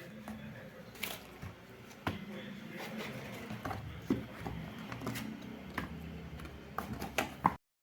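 Hands handling a small thermal receipt printer and its packaging: irregular clicks, taps and knocks. It cuts off abruptly near the end.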